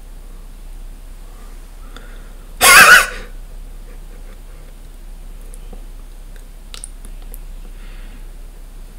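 A man's short, loud burst of laughter, about half a second long, near the third second, over faint room noise with a few soft clicks later on.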